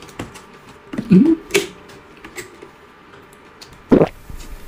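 Eating and drinking noises: light clicks of chewing, a short voiced "mm" about a second in, and near the end a loud gulp as a drink is swallowed straight from a large jug.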